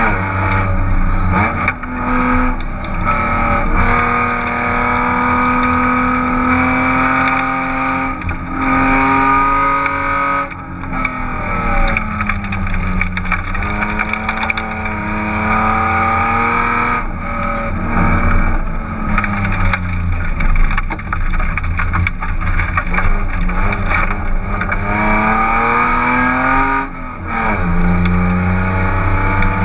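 In-car sound of a 1999 BMW 328is's 2.8-litre straight-six engine driven hard at wide-open throttle. The pitch holds high, breaks off briefly several times, and falls and climbs again a few times as the car slows and picks up speed. The exhaust, disconnected at the midpipe, makes it loud and open.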